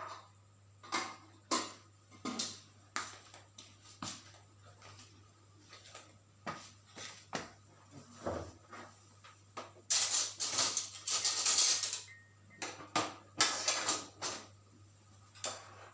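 A spoon knocking and scraping against dishes as rice is served. There is a string of short clinks and knocks, with two longer, louder runs of scraping a little past the middle.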